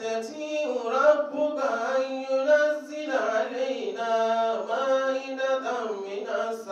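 A man's voice chanting a melodic Quran recitation in Arabic, in long held and ornamented phrases, amplified through microphones.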